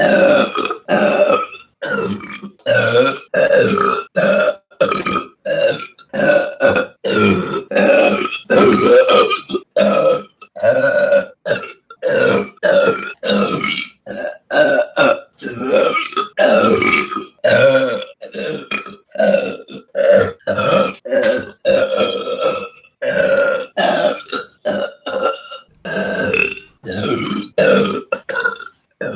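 A woman burping, dozens of short belches one after another, each cut off abruptly before the next begins.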